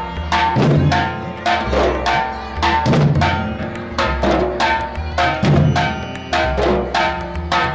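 A troupe of large rope-laced double-headed barrel drums (dhol) beaten with sticks, playing a loud, steady, driving rhythm with several drums striking together.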